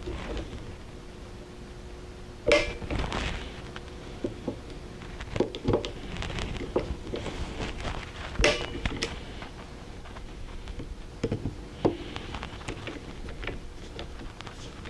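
Tools and small metal parts handled at a workbench: scattered clicks and knocks, the loudest about two and a half and eight and a half seconds in, some with a brief metallic ring.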